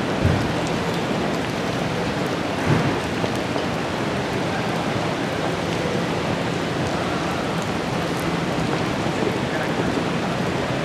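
Steady hiss of rain, with two short thumps in the first three seconds.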